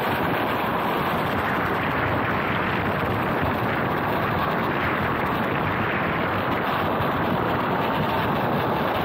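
Electric skateboard rolling steadily over asphalt on airless 3D-printed TPU wheels, a constant road rumble mixed with wind rushing over the microphone.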